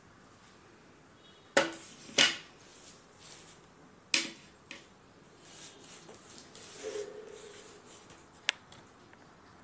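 A plate being set down on a glass-topped table and a steel spoon laid on it: two sharp knocks about a second and a half in, another clink about four seconds in, soft scraping, and a last sharp clink near the end.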